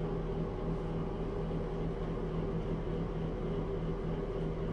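Steady low machine hum with a constant drone and even hiss, unchanging throughout.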